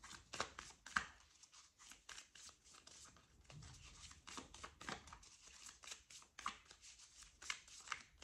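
Tarot deck being shuffled by hand: a faint run of irregular card flicks and slaps.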